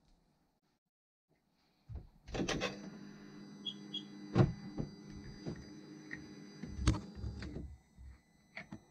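Electric starter cranking a Sea-Doo Rotax supercharged engine over for a compression test, starting about two seconds in and stopping after about five seconds. A couple of light clicks follow near the end.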